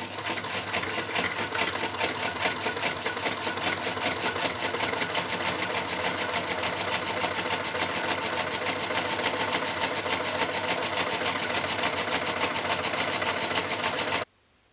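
Electric sewing machine running at a steady speed, its needle stitching a seam through waxed canvas with a rapid, even stitch rhythm. It stops suddenly near the end.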